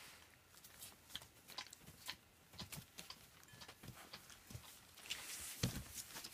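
German Shepherd puppies eating kibble from steel bowls: faint, scattered crunching and small clicks. A louder rustle of newspaper and a few soft thumps come about five seconds in.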